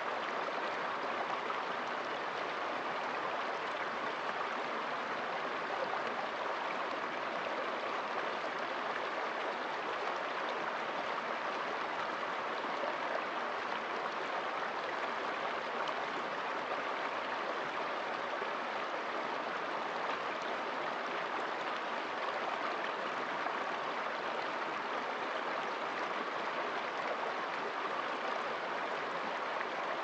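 Shallow rocky stream running over stones: a steady, even rush of flowing water that does not change.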